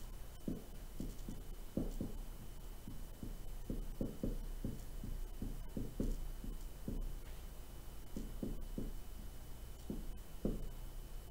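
Dry-erase marker writing on a whiteboard: a run of short, irregular strokes and squeaks, some closely spaced, with brief pauses between words.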